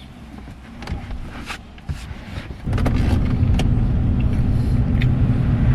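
A few clicks and knocks, then a car engine comes on abruptly about halfway through and runs at a steady idle.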